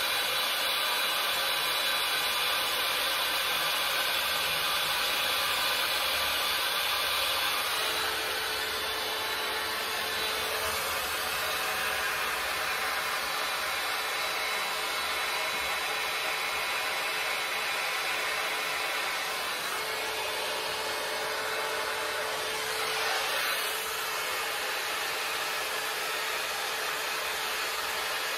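Babyliss hot air styling brush blowing steadily, a constant rushing hiss of its fan and airflow through the hair. It eases slightly about eight seconds in, with a faint hum coming in.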